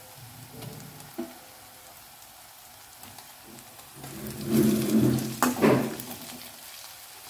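Chopped onions, tomatoes and spice paste frying in oil in a steel pan, a faint steady sizzle. About four seconds in, a spatula stirs and scrapes through them for a couple of seconds, louder, with a couple of sharp clinks against the pan.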